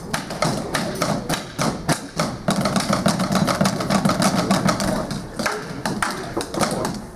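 A group of children drumming with sticks on rubber practice pads: a loose, dense clatter of many stick taps several a second, over the beat of a larger drum struck with sticks.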